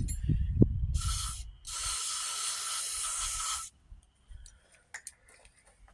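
Aerosol spray can hissing in two bursts, a short one and then a longer one of about two seconds, spraying into the pin area before the pins are pulled. A few dull knocks come before it.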